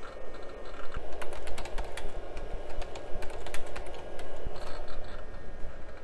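Vintage PC hard drive seeking, its heads clicking rapidly and irregularly as ScanDisk reads the drive, over a steady hum.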